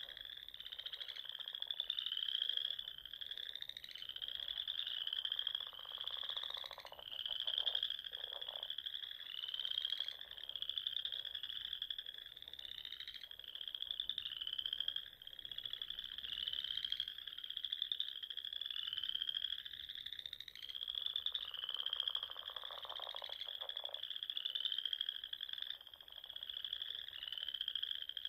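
Frogs calling: a long series of short, high, chirping trills, several a second, overlapping as if from more than one frog.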